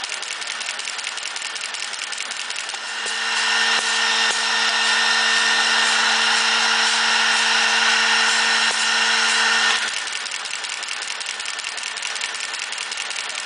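CNC hair-brush-making machine running with a dense, rapid mechanical clatter. About three seconds in, a motor-driven unit starts up louder with a steady hum and high whine, runs for about seven seconds, then cuts off suddenly.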